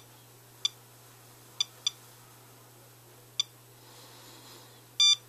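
SOEKS radiation dosimeter ticking out detected particles as short, high electronic chirps at uneven intervals, four of them, then a longer, louder beep about five seconds in. It is counting a rain-wipe sample that reads 0.52 microsieverts per hour, well above background.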